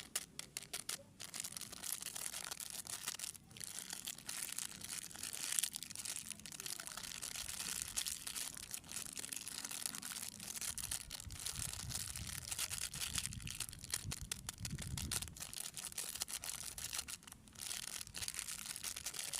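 Plastic snack wrappers crinkling and rustling as they are handled, a steady crackle with many sharp crackles throughout.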